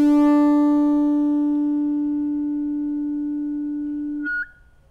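A single synthesizer note, D, played from a Native Instruments Maschine pad and held for about four seconds: a steady pitched tone with many overtones that fades slowly, then stops when the pad is released, leaving a short tail.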